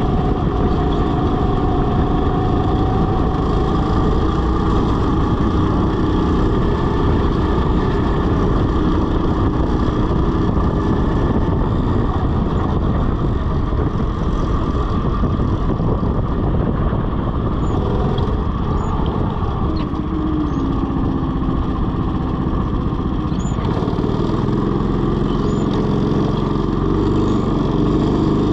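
Go-kart engine running at speed, heard from the driver's seat, its pitch rising and falling as the kart speeds up and slows through the corners.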